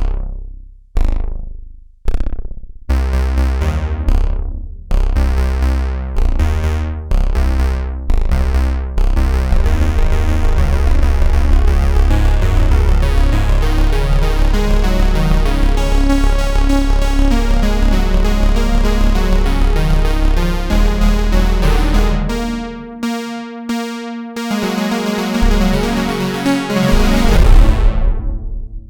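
Roland Juno-106 analog polysynth playing a patch: three single notes that each start bright and fade, then a fast repeating pattern of short notes over a heavy bass line. The bass drops out about 23 seconds in, comes back briefly, and the sound dies away near the end.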